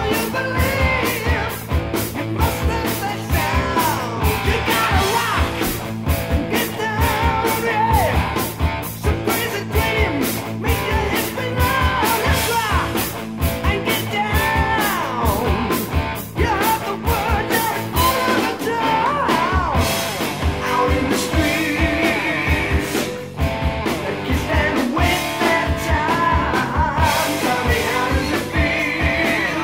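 Rock song with a singing voice over a steady drum beat, laid over the footage.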